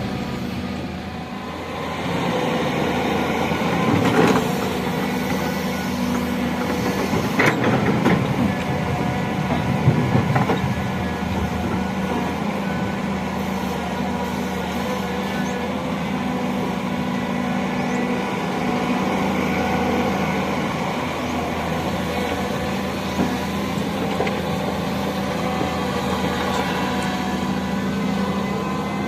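Excavator running steadily as it works, with a few knocks and clanks between about four and ten seconds in.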